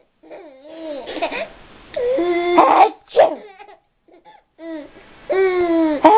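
A high-pitched voice making several wordless, drawn-out vocal sounds. The longer ones slide down in pitch and end in a short, loud, breathy burst.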